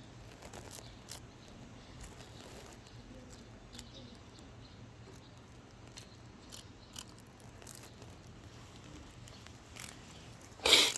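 Soft rustling and scattered light clicks as a netted cicada is handled, with one louder, brief crackling rustle near the end.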